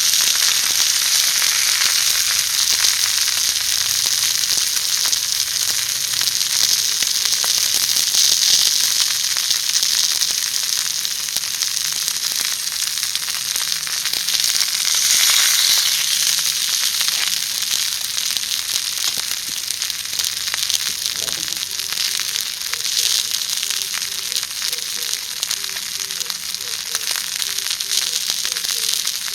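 Pork-wrapped rice balls sizzling as they fry: a steady, loud sizzle that swells a few times.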